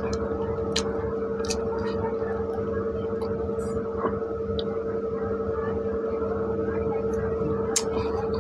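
Close-mic eating and drinking sounds: sips and gulps of water and chewing of soft pav bread, heard as scattered short wet clicks over a steady hum.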